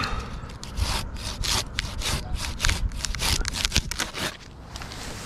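Curved pruning handsaw cutting through a live tree stem in rapid back-and-forth strokes, about four a second, finishing the cut on the stem. The strokes stop a little after four seconds in.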